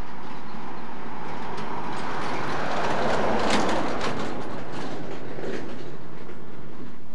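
Irish Rail diesel-hauled cement train approaching, its engine running under a rumble of wheels with a run of sharp clicks from the wheels crossing rail joints and points. The rumble swells to its loudest about halfway through, then eases off.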